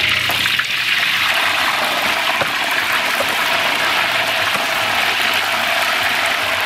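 Hot oil sizzling steadily as whole chickens deep-fry in a large aluminium pot.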